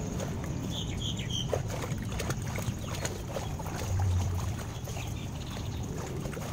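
Pool water sloshing and splashing close by as a swimmer moves through it next to the edge, with a few short bird chirps about a second in.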